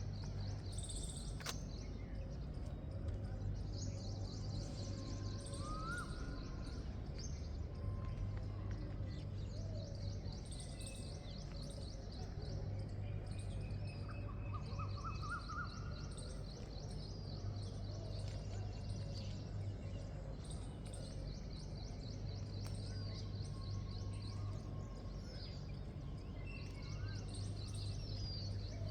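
Birds singing at dawn: a high, rapid trill of about two seconds repeated every few seconds, with scattered chirps and short rising whistles, over a steady low hum.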